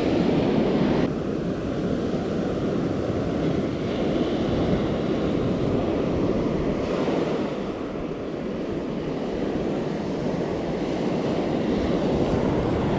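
Surf breaking and washing up the beach: a steady rush of waves.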